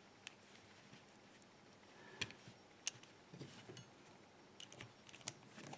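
A few faint, scattered metallic clicks from a gutted ZEISS IKON half euro cylinder whose plug is being pushed in and turned by hand.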